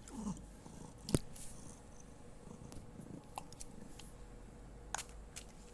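A few sharp clicks and small handling noises, the loudest about a second in.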